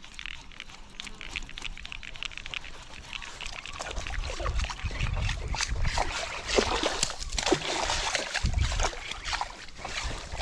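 Daiwa Tatula SV TW baitcasting reel ticking rapidly as line is wound in. From about four seconds in, water splashes and sloshes at the bank as a hooked bass is fought close in, over a low rumble.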